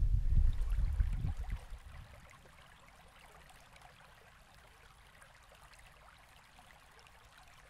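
Wind rumbling on the microphone over water for about the first two seconds, then it falls away to a faint steady hiss.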